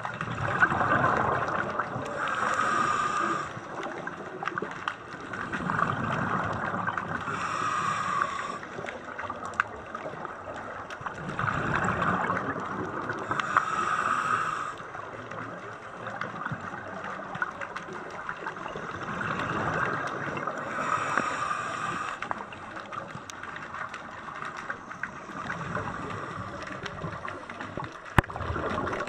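Scuba diver breathing through a regulator underwater: a rush of breath and exhaled bubbles that swells and fades about every six seconds, four or five breaths in all.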